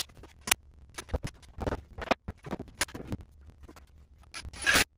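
Scattered knocks, taps and scrapes of a wooden 2x4 block and its hinge hardware being handled and fitted up against the ceiling, with a brief louder noise near the end.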